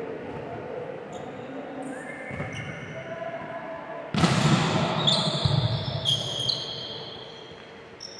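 Volleyballs hitting and bouncing on a gym court, with short shoe squeaks, echoing in a large hall. The sound gets suddenly louder about four seconds in, then fades.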